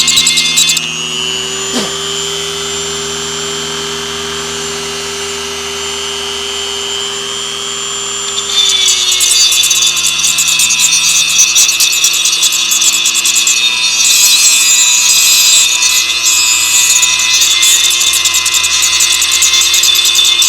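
Angle grinder with an abrasive disc grinding rust off steel. About a second in it comes off the work and spins free with a steady whine. At about eight and a half seconds it bites into the metal again and grinds on loudly.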